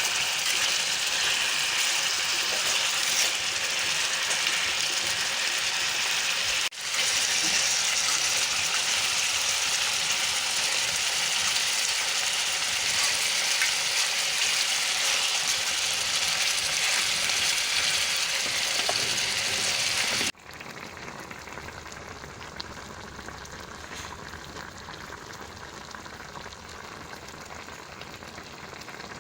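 Chicken wings frying in hot oil with onion, garlic, bell pepper and leek, sizzling steadily; the sizzle drops much quieter about two-thirds of the way through.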